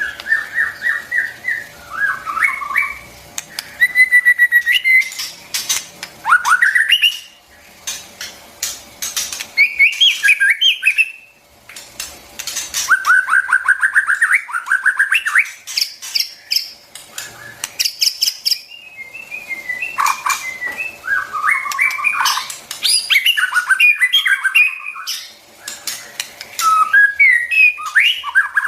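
White-rumped shama singing: varied phrases of clear whistles, rapid runs of repeated notes and harsh clicking calls, each phrase a second or two long with short pauses between them.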